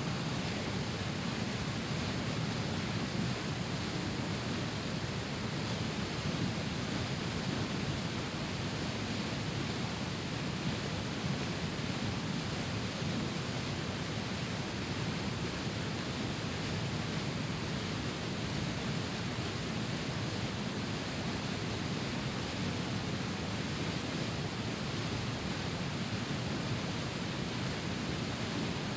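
Whitewater rapids pouring over rock ledges: a steady, deep, unbroken rush of water.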